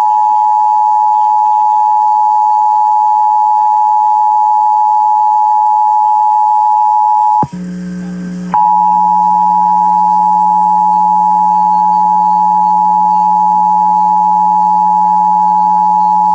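Emergency Alert System attention signal: the steady two-tone EAS alert tone of a required monthly test. It sounds for about seven and a half seconds and breaks off abruptly. After about a second of low hum it starts again and holds to the end, with the low hum underneath.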